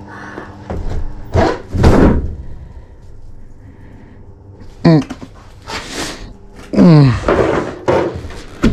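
A door of a small enclosure is pulled shut with two loud thuds. After a quiet stretch comes a sharp sound about five seconds in and a longer, louder one about two seconds later, both sliding down in pitch. A click near the end comes as the door is pushed open.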